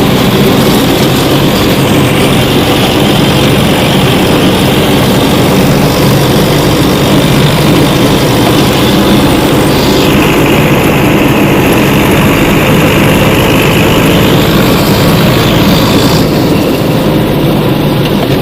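Homemade mini-tractor's engine running steadily while it drives along.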